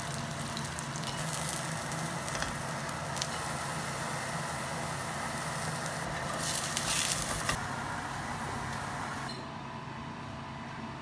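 Food frying in hot oil in a cooking pot, a steady sizzle with a few light clicks. It hisses louder for about a second near the middle and settles quieter shortly before the end.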